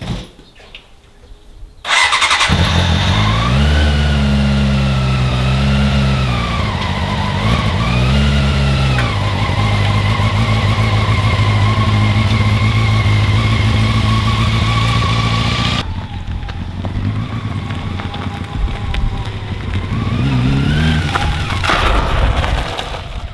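Motorcycle engine catching about two seconds in, blipped up and down a few times, then running at a steady idle. It drops abruptly to a quieter running sound as the bike rides, with one short rev near the end.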